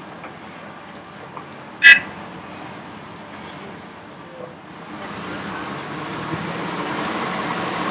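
Hitachi ZX870 large hydraulic excavator's diesel engine running as it works a loaded bucket, with one sharp, loud metallic clank about two seconds in. The machine gets louder over the last few seconds.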